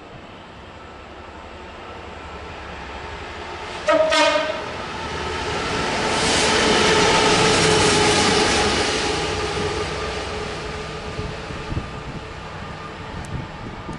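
Class 66 diesel locomotive running light through a station, giving one short horn blast about four seconds in. Its two-stroke V12 diesel engine then grows loud as it passes and fades as it moves away.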